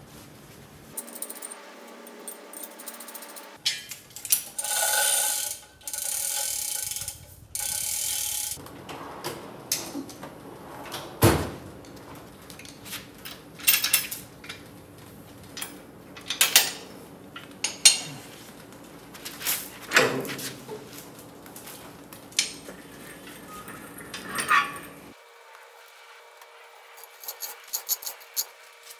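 Workshop metal handling on a car chassis: sharp metal clanks and knocks from tools, the rotisserie stand and the hoist chain. About four seconds in come three short bursts of a steady whirring noise, each about a second long.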